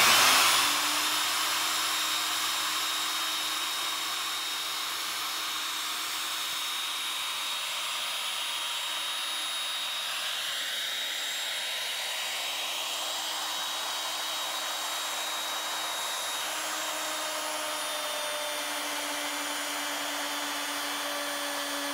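CNC router spindle running a 3/16-inch end mill through sheet metal: a steady hiss with a constant tone underneath, louder for the first second or two and then holding level.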